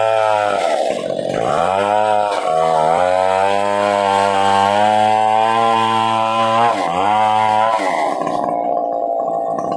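Stihl 070 two-stroke chainsaw running at high revs under cutting load. Its note sags and recovers three times. Near the end it stops and gives way to a different, quieter steady sound.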